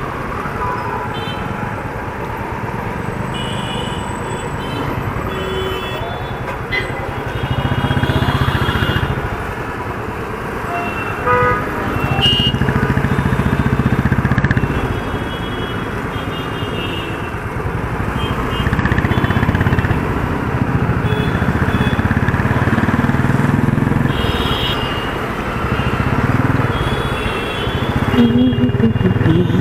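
Motorcycle engine running in slow stop-and-go traffic, its note swelling with throttle every few seconds and easing off in between. Horns from surrounding traffic toot several times over the road noise.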